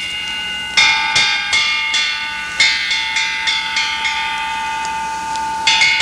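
A hanging metal alarm gong struck over and over, two to three strokes a second. Each stroke rings on in a steady high clang, and the rings overlap. The strokes pause briefly, then a fresh run starts near the end.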